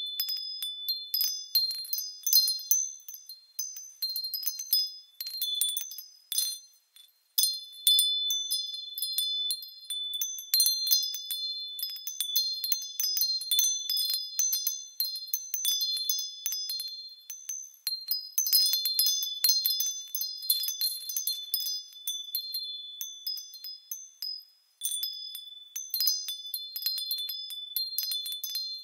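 Wind chimes tinkling: a continuous, irregular scatter of high, ringing metal notes, with a couple of brief lulls.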